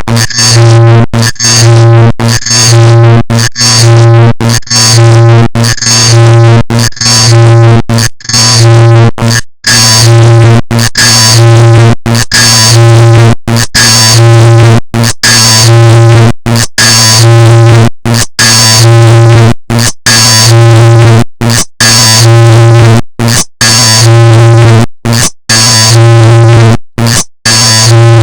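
Clock-ticking sound digitally multiplied until it no longer ticks: a loud, distorted electronic buzzing with a strong low hum. It swells about every second and a half and cuts out briefly now and then, more often near the end.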